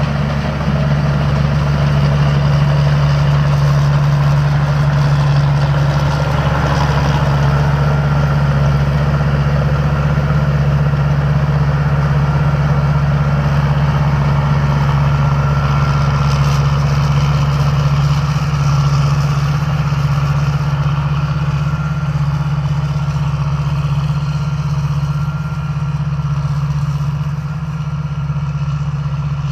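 Combine harvester's engine and machinery running steadily, a strong low hum with mechanical noise over it.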